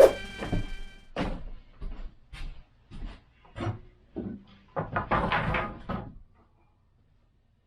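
Background music cutting off, then a series of knocks and thuds with a longer clatter about five seconds in, before the sound drops out entirely near the end.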